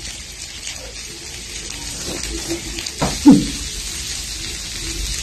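Steady sizzling hiss of food cooking on a barbecue grill, with a short voice sound about three seconds in.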